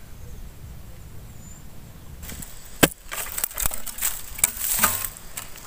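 A blade chopping at bamboo shoots at the base of a bamboo clump. A sharp strike comes about three seconds in, followed by a quick run of chops and knocks.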